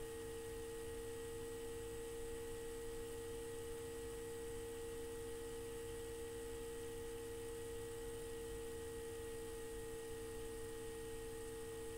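A steady hum made of a few unchanging tones, like electrical mains hum, with nothing else heard.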